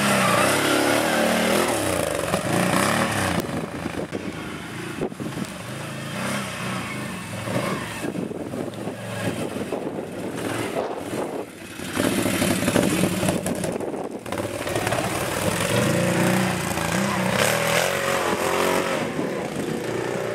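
Can-Am quad engine revving up and down as the ATV climbs and manoeuvres on a grassy slope. It is loudest a little past the middle, with short lulls where the throttle eases off.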